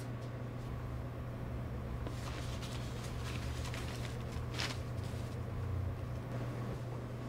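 Steady low hum with a faint rumble beneath it, broken by a few faint clicks and rustles about two seconds in and a sharper click past the middle.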